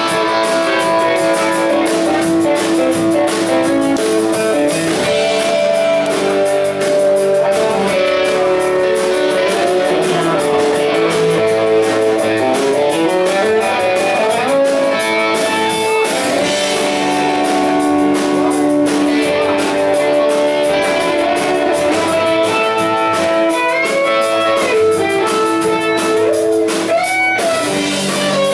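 Live rock band playing an instrumental stretch: an electric guitar lead with held notes that bend and slide in pitch, over rhythm guitar and drums.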